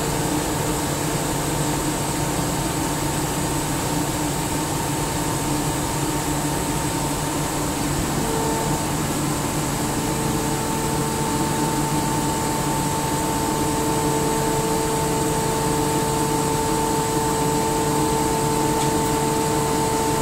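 SCR50M rotary screw air compressor running steadily: a constant mechanical hum with a steady whine over it, its tone shifting slightly about eight seconds in.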